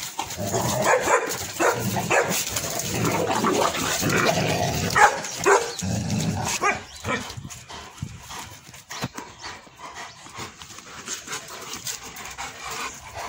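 Several young dogs play-fighting, barking at one another. The noise is busiest for the first six or seven seconds, then thins out.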